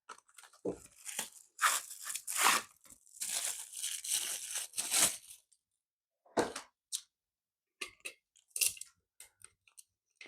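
Rustling and crinkling as a portable fan's stand is unpacked and handled, then after a pause a few scattered clicks and short rustles as it is fitted.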